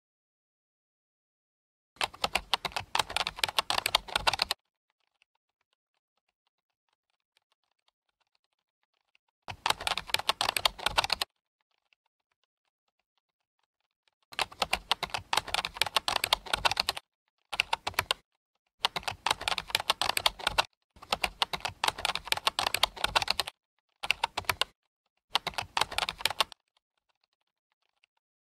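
Computer keyboard typing sound effect: rapid key clicks in about eight separate runs, each from under a second to a few seconds long, with silent gaps between them.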